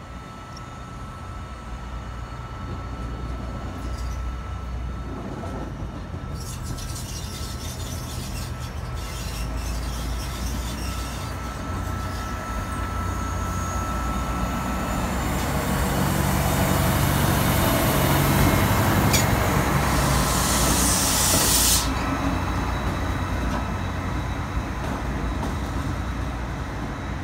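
Class 88 locomotive 88005 moving slowly toward and past, a steady low hum that grows to its loudest as it draws level. A loud hiss starts about fifteen seconds in and cuts off suddenly some seven seconds later.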